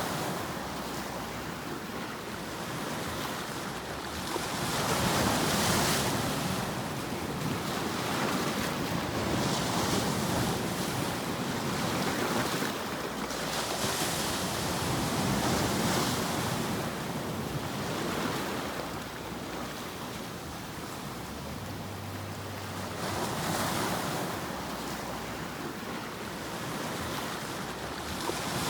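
Ocean surf: waves breaking and washing in slow surges every few seconds, with a steady hiss between them.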